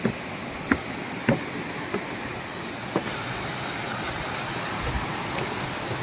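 Steady rush of a waterfall and stream tumbling over boulders, turning brighter and hissier about three seconds in. A few sharp knocks sound over it in the first three seconds.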